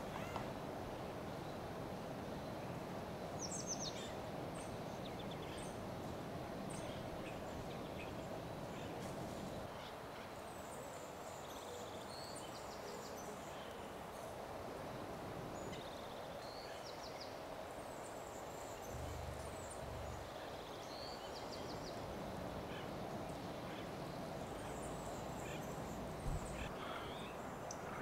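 Short, high bird chirps and twitters come here and there over a steady low background noise. A brief low thump sounds near the end.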